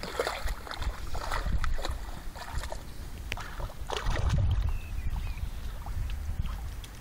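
English bull terrier wading through shallow creek water, with irregular splashing and sloshing. Wind rumbles on the microphone, loudest about four seconds in.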